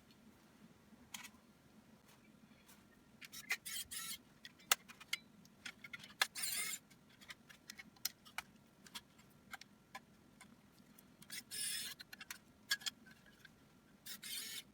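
Laptop parts and small tools being handled on a work surface: irregular sharp clicks and taps, with a few short scraping rasps around four, six and twelve seconds in and near the end.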